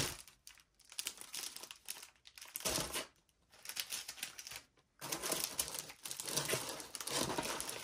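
Clear plastic zip bags crinkling and rustling in irregular bursts as hands rummage through bagged papercraft kit items, with a couple of short pauses.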